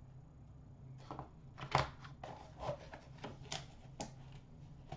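Trading cards, plastic card holders and a small cardboard card box being handled: scattered light taps, clicks and rustles, the sharpest about two seconds in.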